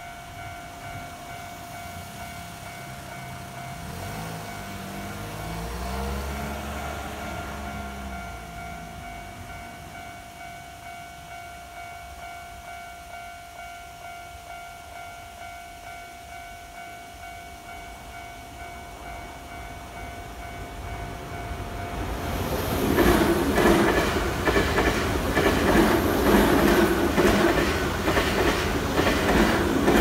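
Japanese level-crossing warning bell ringing steadily as the lights flash; a low hum swells and fades between about four and eight seconds in. From about twenty-two seconds in, a Nankai 8300 series electric train passes through the crossing, loud, its wheels clacking rapidly over the rail joints.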